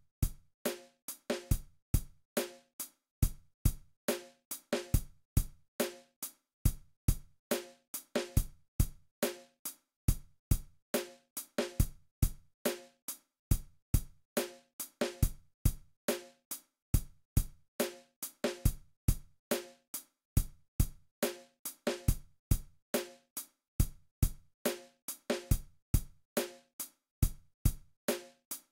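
Background music: a steady drum beat of sharp, evenly spaced kick and snare hits, several a second, with a few short pitched notes.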